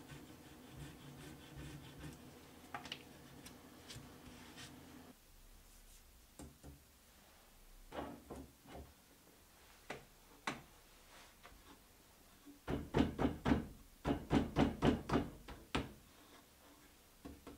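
Wooden knocks from a thin board being set into the leather-lined jaws of an oak bench-top vise and handled there. The knocks are scattered at first, then a quick run of about a dozen sharp knocks comes a little past the middle.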